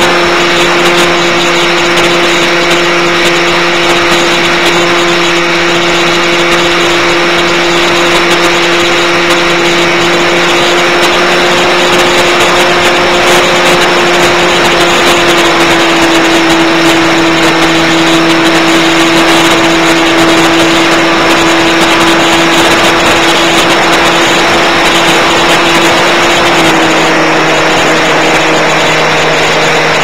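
Electric motor and propeller of a Multiplex Easystar RC plane running steadily in flight, heard close up from on board with rushing air noise. The pitch dips slightly about halfway through and again near the end as the throttle eases.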